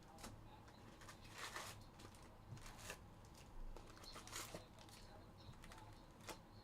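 Faint tearing and crinkling of trading-card pack wrappers being opened, with cards handled: a few short rips and rustles, the loudest about one and a half and four and a half seconds in.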